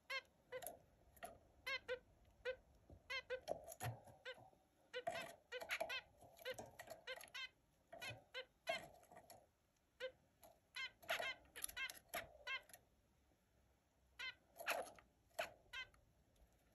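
Zebra finches calling: many short calls, some single and some in quick irregular runs.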